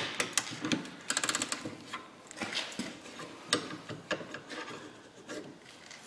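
Socket wrench and extension working a seized rear suspension nut: one sharp metal knock at the start, a quick run of clicks about a second in, then scattered knocks and clicks while the nut will not come off.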